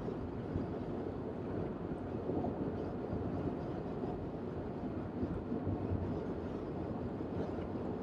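Steady, low road noise inside the cabin of a moving car.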